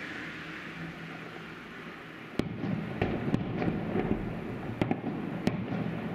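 Distant fireworks salute: after a steady hiss, a sharp bang about two and a half seconds in, then several more bangs with crackling over the next few seconds as the shells burst.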